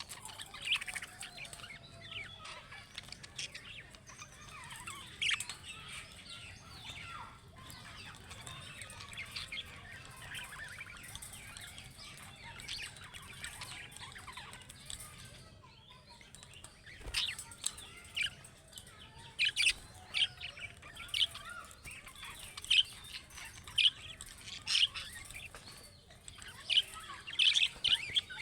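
Budgerigars chattering: a steady stream of short, high chirps and warbles, with louder, sharper chirps coming more often in the second half.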